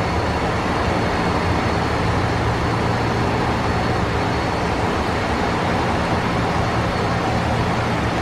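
Boeing 767-200 flight deck in the climb after takeoff: a steady rush of airflow and engine noise with a constant low hum and a faint high whine.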